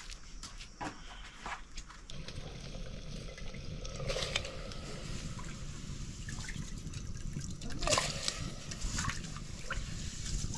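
Water trickling and splashing, with a few short knocks.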